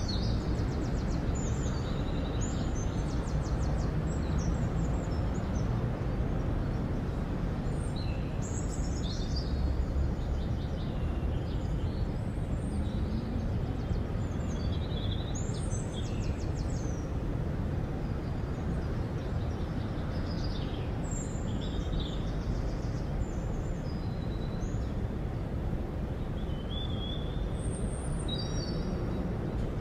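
Small birds chirping and trilling in short scattered phrases over a steady low background rumble of outdoor ambience.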